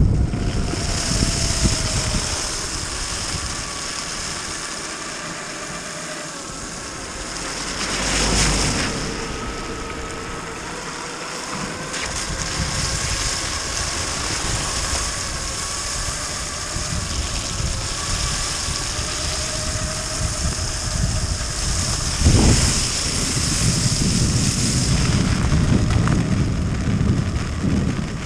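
Electric mountainboard riding over packed snow: its twin brushless motors and belt drive whine, the pitch drifting slowly with speed, over the rush of tyres on snow and wind on the microphone. A louder swell of noise comes about eight seconds in, and a bump a little after twenty-two seconds.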